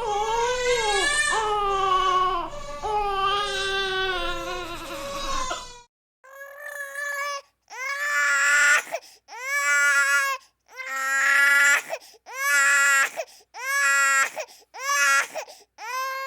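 Infant crying. A continuous wail over a low background hum gives way, about six seconds in, to a different, cleaner recording of a baby crying in a string of separate wails about a second long each, with short breaths between them.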